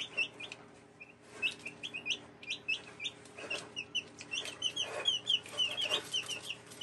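A small brood of young chicks (buff Orpingtons, an olive egger and prairie bluebell eggers) peeping, in a quick, continuous run of short high cheeps from several birds at once.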